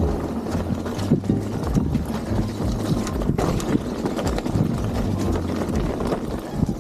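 Mountain bike rolling over a rough dirt trail: tyres running with frequent knocks and rattles of the bike over roots and rocks.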